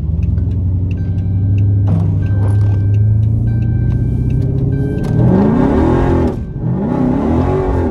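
Dodge Charger's 392 Hemi V8 pulling hard on wet pavement, its revs flaring up and dropping twice in quick succession in the second half as the rear tyres break loose and spin, over a hiss of tyres and spray. A car warning chime dings several times early on.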